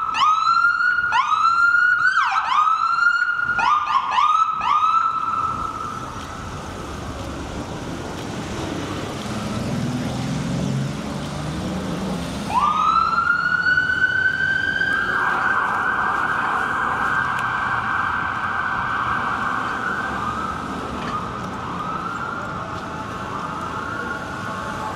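Emergency vehicle siren on the street: a string of quick rising whoops, then after a lull a long rising wail that breaks into a fast warble about halfway through, ending in slower repeated whoops. Steady traffic noise runs underneath.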